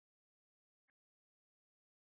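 Silence: the audio track is empty.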